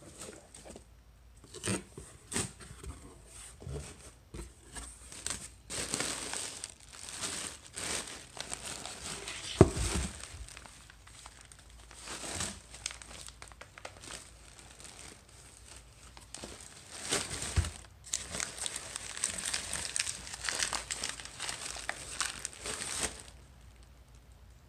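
Box packaging being opened and handled: cardboard flaps, plastic air-pillow packing and wrapping paper crinkling and rustling in irregular bursts, with a dull thump about ten seconds in.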